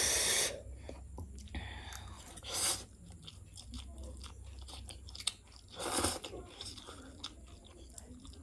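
A person eating very spicy instant noodles: chewing with many small wet mouth clicks, broken three times by a short, loud rush of air sucked in through the mouth, at the start, about three seconds in and about six seconds in.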